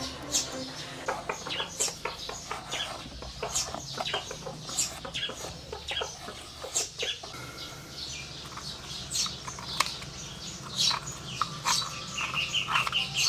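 A nylon brush scrubbing softened old paint off a motorcycle engine's crankcase cover, in many short, uneven strokes.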